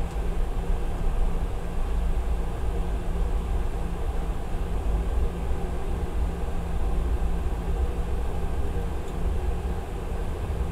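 Cabin noise of a Boeing 717 taxiing: the steady low rumble and hum of its rear-mounted Rolls-Royce BR715 engines at taxi power, heard from inside the passenger cabin.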